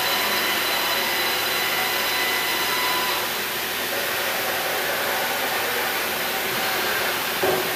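Milltronics HMC70 CNC horizontal boring mill running through an automatic tool change: a steady machine whir with a thin whine over it while the spindle head travels up during the first three seconds. A short knock comes near the end as the tool changer arm works.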